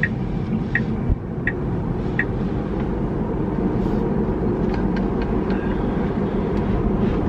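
A car running, heard inside the cabin: a steady engine and road rumble. Through the first couple of seconds a light tick comes about every 0.7 seconds, and a few faint clicks come later.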